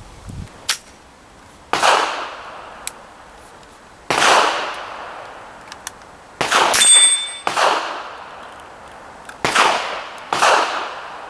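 GSG STG44 .22LR rifle fired in single shots, about six shots a second or two apart, each fading out in an echo. Shortly after one shot a steel target plate rings from a hit.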